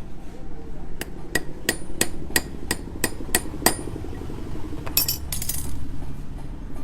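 About ten light, evenly spaced metallic taps, roughly three a second, like a small hammer striking metal, followed about a second later by a brief rattling hiss.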